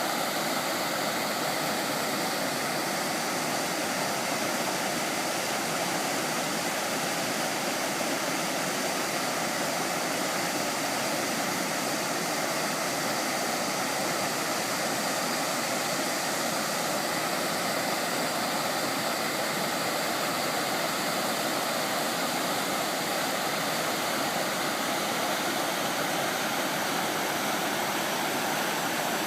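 Water rushing steadily over a river weir: a constant, even roar of white water with no breaks or changes.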